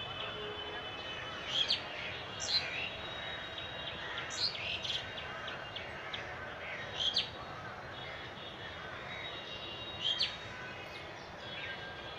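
Birds calling: sharp, high calls repeated every two or three seconds, with fainter thin chirping trills between them over a steady outdoor hiss.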